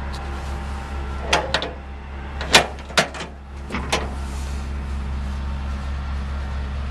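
Seven or so sharp knocks and clicks, close together between about one and four seconds in, over a steady low hum.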